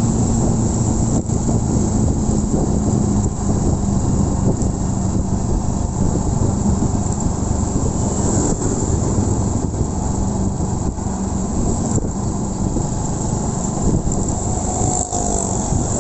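Honda Win 100 single-cylinder four-stroke motorcycle running at a steady light-throttle cruise while being ridden, its engine note under heavy wind and road noise on the microphone.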